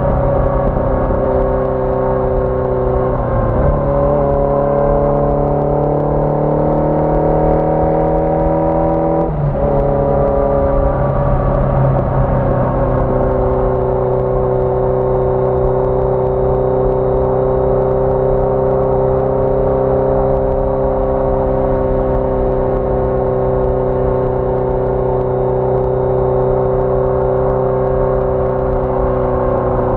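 1981 Yamaha XJ650 Maxim's air-cooled inline-four engine under way. Its pitch climbs as the bike accelerates, breaks twice (about three and a half and about nine seconds in) as gears change, then settles into a steady cruise.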